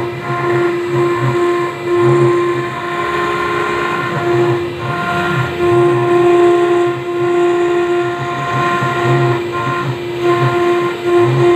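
High-speed CNC engraving machine cutting granite: the spindle's steady whine, dipping briefly every second or two, over a lower hum that pulses on and off as the machine moves.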